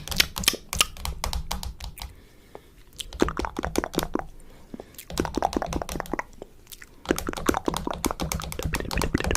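Rapid, irregular clicking in several bursts with short pauses between them.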